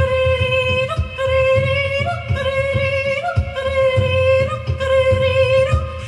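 A woman singing wordless improvised vocal music (freesong), holding long notes that step up and back down a little, over low dumbek hand-drum strokes.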